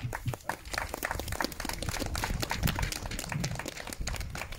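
A small crowd applauding, many quick, irregular claps.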